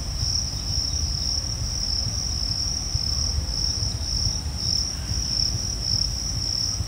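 Steady high-pitched insect chorus, shrill and unbroken, over a low rumble.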